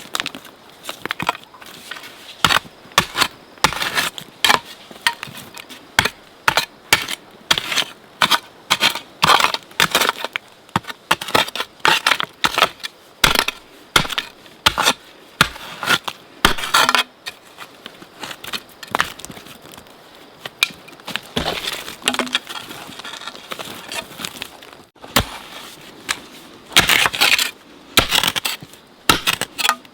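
Irregular crunching and cracking strikes, one to three a second, with a short lull around two-thirds of the way in and a denser run near the end.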